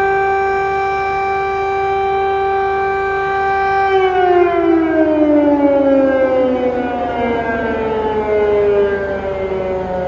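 Air raid siren sounding a steady, loud tone, then winding down in a slow falling pitch from about four seconds in.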